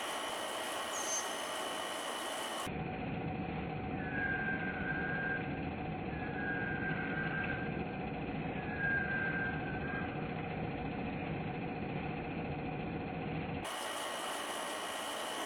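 Window air-conditioning unit running with a steady hum. In the middle come three long, flat whistled notes, and a short high chirp about a second in.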